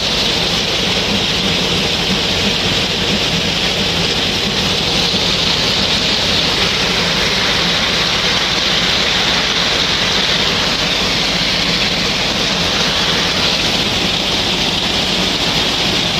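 Grain pouring in a steady rush from a tipping truck body onto the intake grate of a mobile grain loader, with the loader's machinery humming low underneath.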